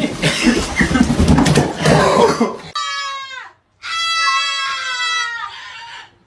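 A harsh, noisy sound lasting about two and a half seconds, then two held brass-like notes, each drooping in pitch at its end, like a comic sad-trombone sound effect.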